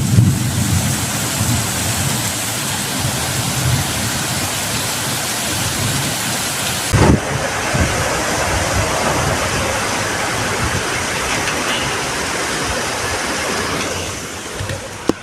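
Heavy rain pouring, a steady dense hiss, with a low rumble in the first second. The sound changes abruptly about seven seconds in, with a short knock, and the rain continues.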